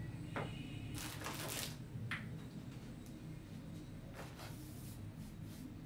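Quiet room tone: a steady low hum with a few brief, soft rustles.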